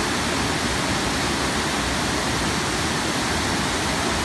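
Steady rush of whitewater from a waterfall and mountain torrent tumbling over rocks.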